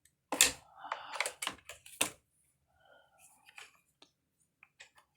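Hard plastic parts of a Hoover carpet washer clicking and knocking as the brush housing piece is fitted back into place: a sharp click about half a second in, a cluster of knocks around two seconds, then lighter ticks near the end.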